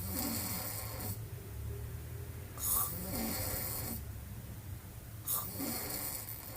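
A woman snoring with her mouth wide open, three snores in a regular rhythm about every two and a half seconds.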